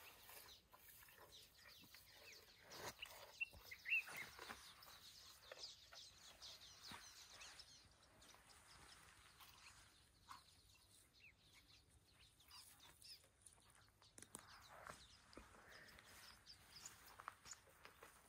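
Near silence: faint outdoor ambience with scattered soft clicks and rustles, and a few short high chirps about three to four seconds in.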